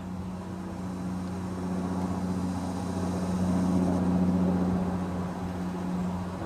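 A vehicle's engine drone as it passes, a steady low hum that grows louder to a peak about four seconds in, then eases off.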